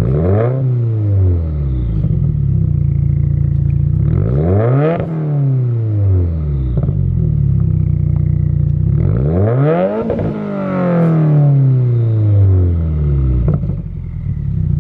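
A 2015+ Subaru WRX's turbocharged flat-four with an aftermarket exhaust idles and is revved three times. Each rev rises in pitch and falls back to idle, and the third is held longest.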